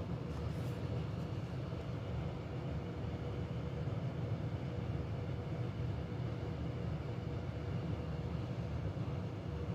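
A steady low hum of a running machine, with a faint steady tone above it.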